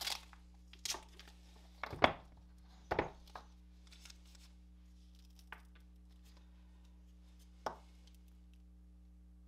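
A few sharp knocks and clicks from handling a roll of painter's tape and a wooden dowel on a hard work surface, the loudest about two seconds in; after the first few seconds only two faint taps.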